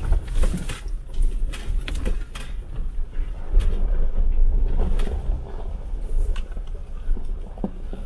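Jeep Wrangler driving slowly over a rough, icy, rocky track: a steady low rumble from the vehicle, with scattered short knocks and crunches from the tyres and suspension.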